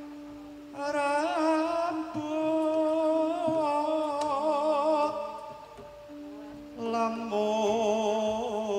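A slow Javanese vocal line sung with a strong wavering vibrato over steady held notes from the gamelan. It comes in two phrases, with a brief lull between them just past the middle.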